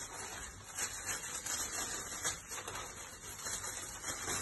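Plastic poly bag rustling and crinkling unevenly as hair bundles are packed into it.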